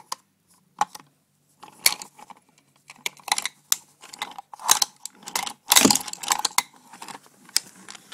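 Irregular clicks, knocks and clatter of wooden toy train pieces and wooden track being handled and pushed by hand. The loudest knock comes about six seconds in.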